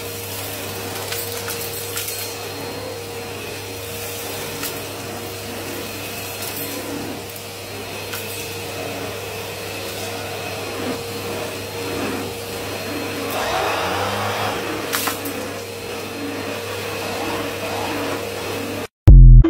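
Vacuum cleaner running steadily as its floor head is pushed back and forth over carpet, with a constant hum and scattered ticks and rattles of grit being sucked up. Just before the end it cuts off abruptly, followed by a brief loud thump.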